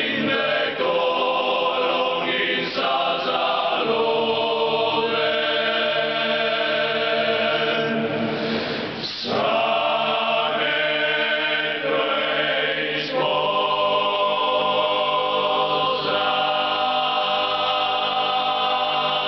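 Sardinian male choir singing a cappella in close harmony, holding long sustained chords that change every few seconds, with a brief dip for breath about nine seconds in.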